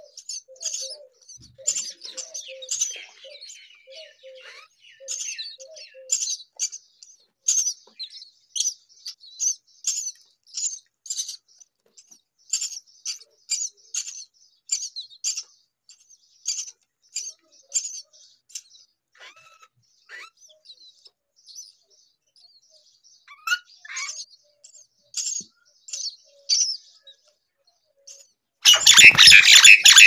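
Hungry common myna nestlings begging: short, high cheeps repeating about once or twice a second. Just before the end comes a loud rush of wingbeats as an adult myna flies in over the nest.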